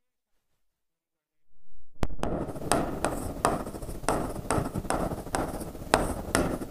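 Stylus tapping and scraping on a smart-board panel while writing: a quick, irregular run of strokes, about three a second. The strokes start about two seconds in, after near silence.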